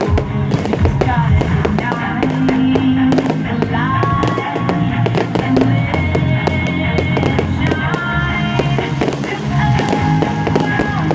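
Fireworks going off in rapid bangs and crackles, over music with held and changing notes.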